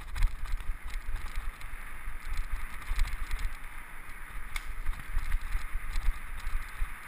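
Mountain bike descending a dirt forest trail at speed: steady tyre noise on the dirt, irregular knocks and rattles from bumps, and low wind buffeting on the helmet-mounted microphone.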